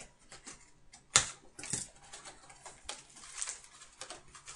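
Scissors snipping the shrink-wrap on a sealed hockey card box, then the plastic wrap crinkling and the cardboard box being torn open: scattered clicks and rustles, with one sharp click about a second in.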